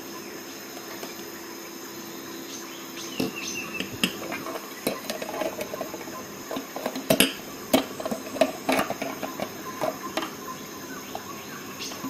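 Sharp metallic clicks and clinks of a Leatherman Skeletool multi-tool being handled, its parts opened and folded. They begin about three seconds in and are loudest a little past the middle, over a steady faint background hum.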